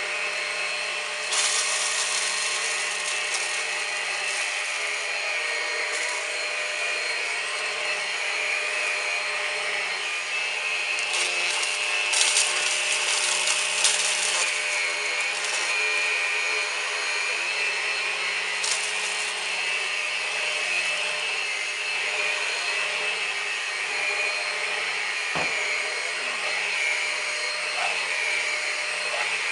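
Numatic Henry Quick HEN70 cordless vacuum cleaner running with its turbo brush head, a steady motor whine with several fixed tones. Short bursts of crackling rattle about a second in, in the middle and again later as cornflakes are sucked up.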